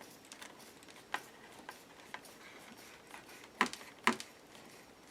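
A few sharp clicks and taps from working a thick leather belt with craft tools: a small one about a second in, then two louder ones about half a second apart, with fainter ticks between.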